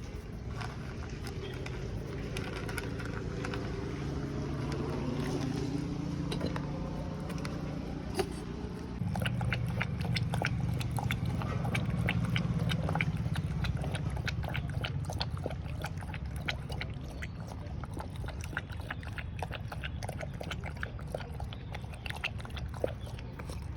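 A street puppy eating, with many small quick chewing and crunching clicks from about nine seconds in, over a steady low hum.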